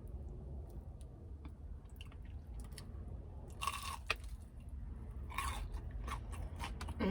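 Close-up chewing of a crunchy breaded fried chicken tender, with many small crackles and two louder crunches, about three and a half and five and a half seconds in.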